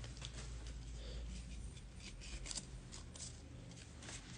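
Faint rustling and light clicks of trading cards being handled and slid through the hands, over a steady low electrical hum.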